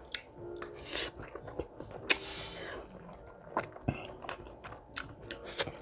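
A person eating spaghetti close to the microphone: wet chewing and lip smacks with many short sharp clicks, and a couple of brief hissy slurps about a second and two seconds in.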